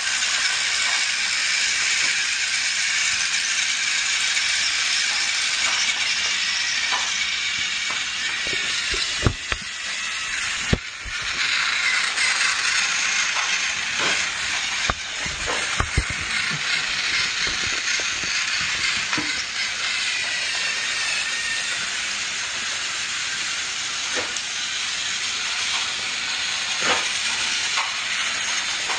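Motorized toy train running on plastic track: a steady whirring hiss from its small motor and wheels, with scattered clicks and knocks, most of them between about a third and just over halfway through.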